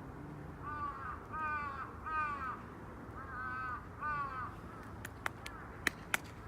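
A crow cawing five times in a row, each caw a short harsh call arching in pitch. Near the end come a few sharp clicks.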